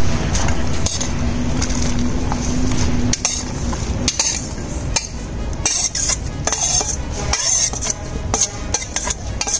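Metal spoon scraping and clinking against a stainless steel bowl as chopped vegetables are tipped into a soup pot, a run of short, sharp clinks and scrapes over a low steady rumble.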